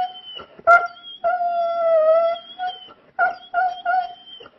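Pet dog howling on cue, its 'singing': a short note about a second in, then a long high howl that dips slightly in pitch and rises back, followed by four short howled notes near the end.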